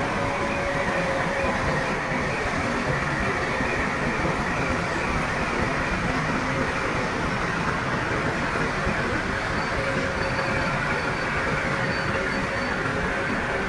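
Shantui crawler bulldozer working, its engine running steadily with a faint steady whine over the mechanical noise.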